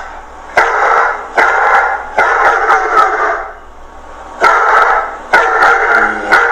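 A dog barking repeatedly, a run of loud barks with a short pause in the middle.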